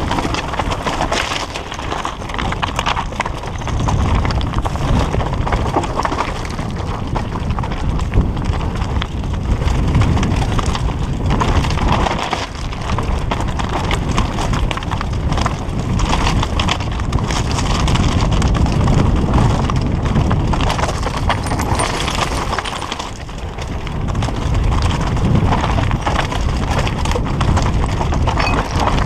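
Downhill mountain bike clattering over a rocky trail: tyres crunching on loose stones, with a constant, irregular rattle and knocking from the bike.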